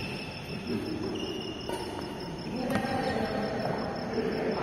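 A cricket chirping in a steady run of quick, even pulses. Two sharp knocks come about a second apart in the middle, racket hits on the shuttlecock in the rally.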